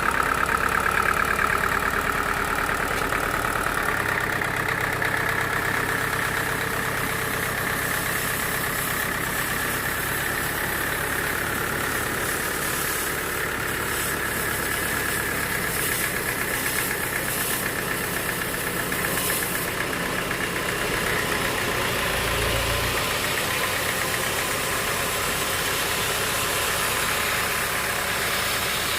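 Sawmill machinery running steadily: a constant engine drone with a high whine over it.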